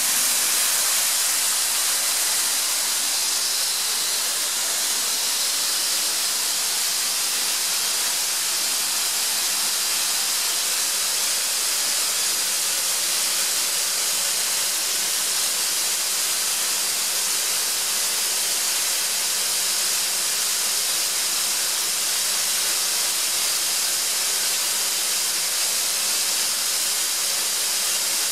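Atlas Copco ZR300 oil-free air compressor running unloaded: a steady, high-pitched rushing hiss that does not change.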